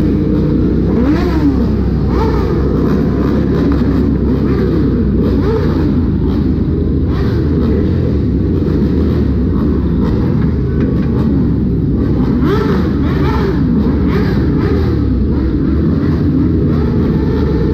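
A dense mass of motorbikes runs together at a loud, steady level. Engines are revved again and again, and their pitch rises and falls.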